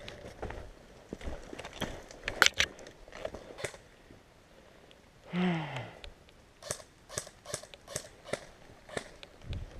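Footsteps of an airsoft player as sharp scattered clicks and scuffs, evenly spaced at about three a second in the second half. About halfway through comes a short human vocal sound that falls in pitch.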